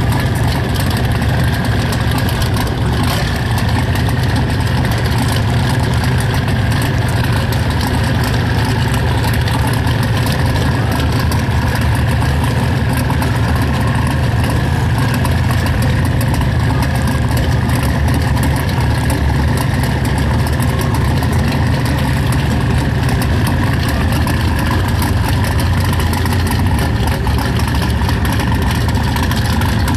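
Turbocharged Holden VL Commodore drag car engine idling steadily and loudly, without revving.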